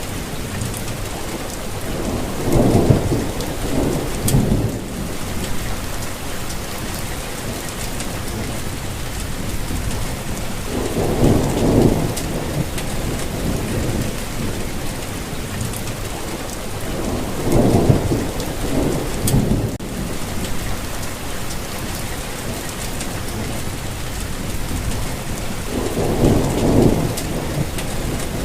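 Steady rainfall hiss. Four low rumbling swells rise and fade, each lasting a couple of seconds, spaced several seconds apart.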